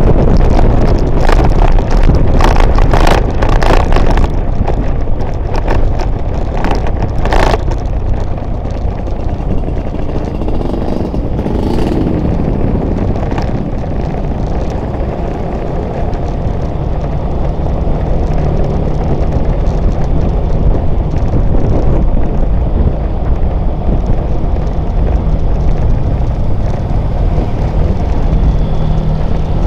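Wind rushing over the microphone of a camera riding along in motorbike traffic, over the steady running of the engines and tyre noise on the road. The wind gusts are strongest for the first several seconds, then ease, leaving a steady drone of engine and road noise.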